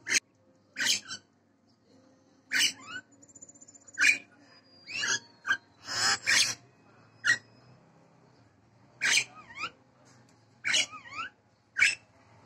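Nias hill myna calling in full voice after its bath: a string of short, loud whistles and harsh calls, a second or less apart, with quick falling notes near the end.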